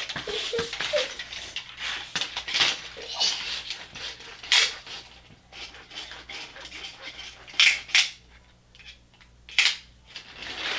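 Small diecast pull-back toy cars being handled and set down on a track: a run of light scraping and rattling clicks, then a few separate sharp clicks.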